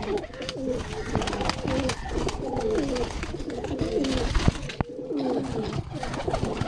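A flock of Pakistani high-flyer pigeons cooing, the low wavering coos repeating and overlapping one after another.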